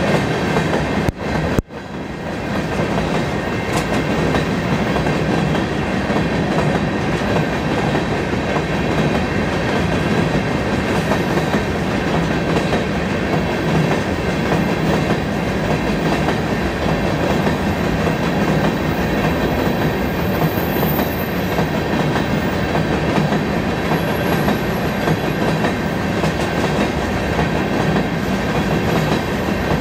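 Freight train of open-top hopper cars rolling past: steady rumble and rattle of steel wheels on rail. It cuts in abruptly at the start, with a brief dropout about a second and a half in.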